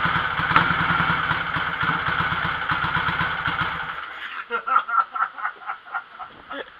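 Freshly rebuilt BSA motorcycle engine running steadily on its first start in at least ten years, then shut off suddenly about four seconds in. A string of light knocks and clicks follows.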